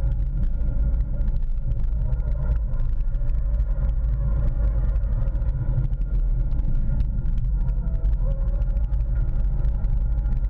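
Seat Leon Cupra 280's turbocharged 2.0-litre four-cylinder engine running hard at lap pace, heard from inside the cabin over a heavy low road and tyre rumble. Its pitch stays fairly level, with small rises and dips.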